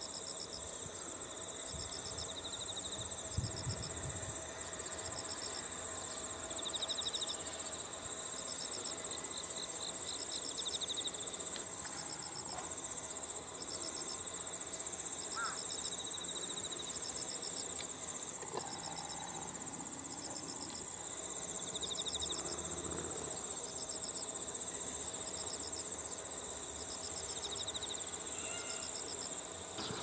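A chorus of insects calling: a steady high-pitched trill, with short pulsed chirps repeating about once a second over it.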